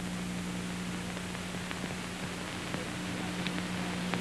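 Steady low electrical hum under even hiss, with a few faint clicks.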